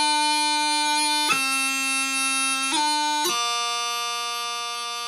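Practice chanter playing the closing notes of a slow 4/4 pipe march. Sustained melody notes are separated by quick grace-note blips, and the last note is held long.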